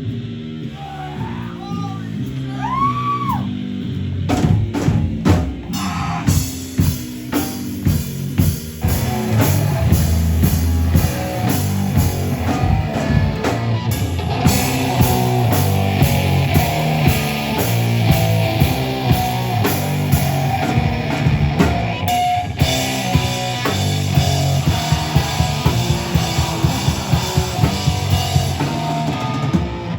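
Loud live rock band with drums, bass and guitar. It opens with a few sliding high tones and scattered drum hits, and the full band comes in about nine seconds in.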